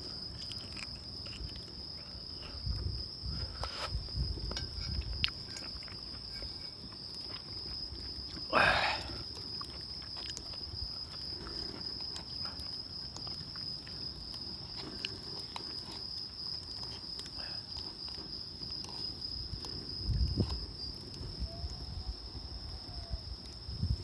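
A night insect chirring in one steady, high-pitched trill throughout. Soft low knocks come and go, and a short, louder sound rises above it about nine seconds in.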